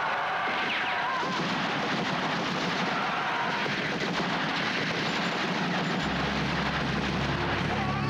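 Dense, continuous gunfire, many shots running together in a rapid rattle, with a steady low drone joining about six seconds in.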